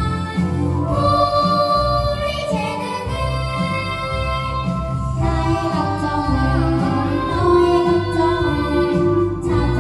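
Three children, a boy and two girls, singing a Korean children's song (dongyo) through handheld microphones over an instrumental accompaniment with a steady bass line, their notes held and gliding.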